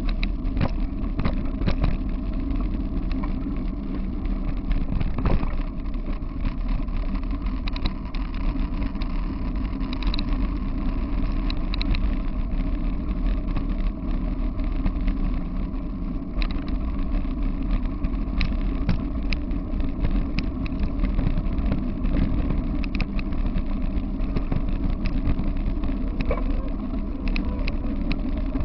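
Steady rumble of wheels rolling fast over a dirt trail, with wind on the microphone and scattered clicks and rattles from the rig and the ground.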